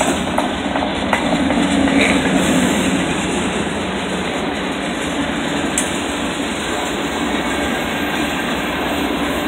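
Freight cars (center-beam lumber flatcars, then covered hoppers) rolling past: a steady rumble and rolling noise of steel wheels on the rails.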